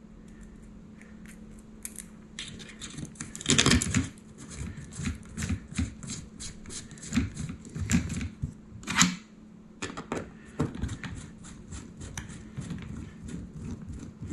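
Irregular clicks, taps and light clatter of small hardware being worked on a carbon-fibre RC helicopter frame: a bolt with its finishing washer and plastic lock nut being fitted through the landing-gear strut with a hex driver. There is a louder clatter about three and a half seconds in and another near nine seconds.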